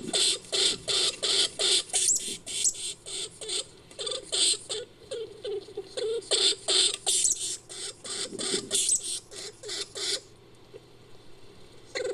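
Made-up creature sound effect for a giant Norway lemming: a fast string of short, high squeaks, about four a second. They stop for a quiet stretch near the end.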